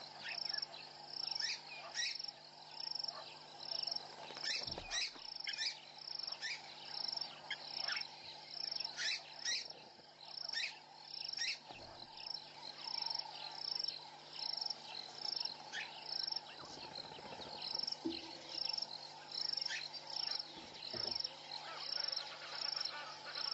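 Evening insect chorus: a regular high-pitched chirping pulse repeating steadily, mixed with many quick falling chirps, over a steady low hum.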